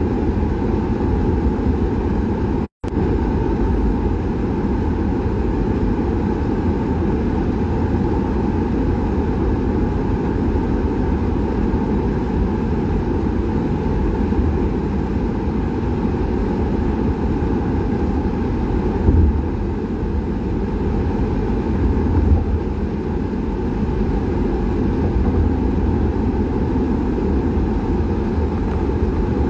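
Steady low rumble of a car heard from inside its cabin, road and engine noise. It cuts out briefly about three seconds in, and there are a couple of short low bumps later on.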